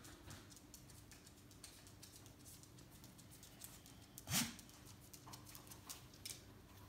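Faint rustling and light scratching of a cat moving inside a fabric mesh pop-up hamper, with one louder short sound about four seconds in that rises briefly in pitch.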